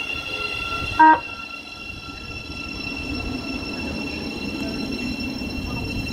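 Thameslink Class 700 electric multiple unit giving one short horn toot about a second in, then running past along the platform with a steady rumble that swells a little as the carriages go by.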